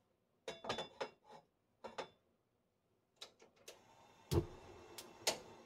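Stainless steel saucepan of water set down on a gas hob's pan support with a few metal clinks, then the burner knob clicks and the gas catches with a low thump about four seconds in, followed by a faint steady hiss of the flame.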